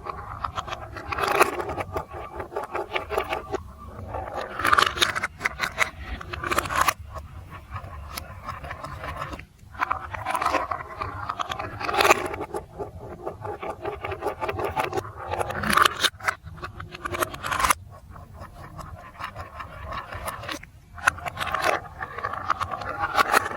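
Plastic marble run building pieces being handled, with irregular scraping, clattering and sharp clicks as the parts are moved and fitted together.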